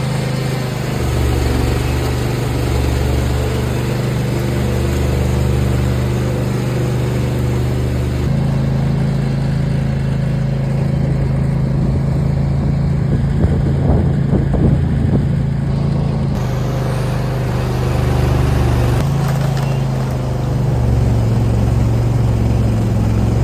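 A car's engine and road noise while driving: a steady low drone whose pitch shifts a few times along the way.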